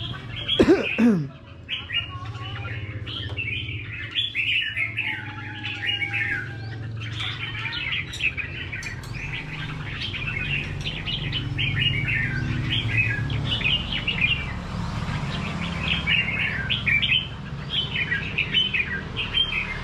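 Caged red-whiskered bulbuls singing in quick, repeated chirping phrases, with a brief loud sound about a second in and a steady low hum underneath.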